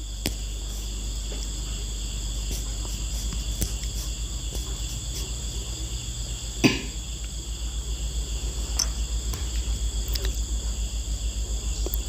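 Insect chorus: a steady high-pitched trilling held on several even tones, over a low rumble that pulses regularly, with a single sharp knock about seven seconds in.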